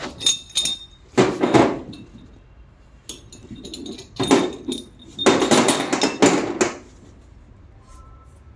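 Metal engine parts clinking and knocking together as they are handled, with faint metallic ringing and a couple of longer bursts of rubbing and scraping.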